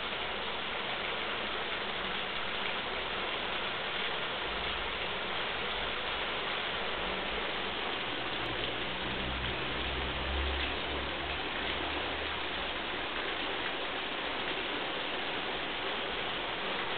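Floodwater rushing down a concrete stormwater channel, a steady, even hiss of fast-moving water. A low rumble comes and goes in the middle.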